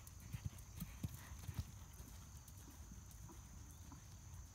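Hoofbeats of a grey horse cantering on sand arena footing: a quick run of low thuds in the first second and a half, then fainter as the horse moves away.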